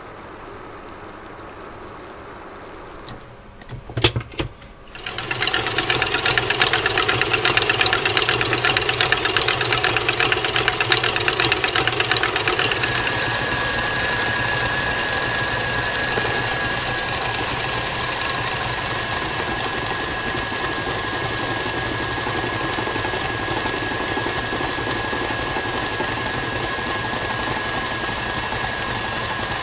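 KitchenAid Classic stand mixer's motor running with the whisk whipping in the steel bowl, steady and loud, while hot sugar-and-glucose syrup is poured in. A few sharp clatters come just before the mixer starts about five seconds in, and a steady high whine joins near the middle.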